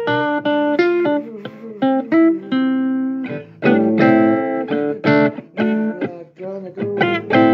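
Recorded song playing, a guitar-led passage of quickly plucked notes between sung lines.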